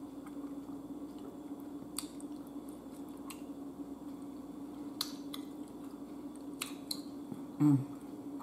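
Close-miked chewing of a mouthful of food: soft wet squishes with sharp mouth clicks every second or two, over a steady low hum. A short voiced 'mm' comes near the end.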